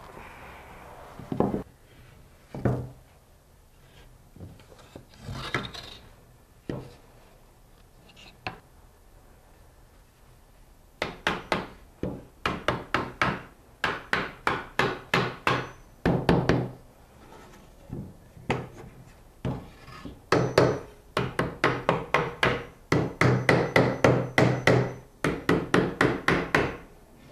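Wooden stretcher bars being knocked together with a hammer, their slotted corner joints driven home: for the first ten seconds or so, scattered knocks and wood rubbing on wood as the bars are wiggled into each other, then runs of quick hammer taps, about four a second.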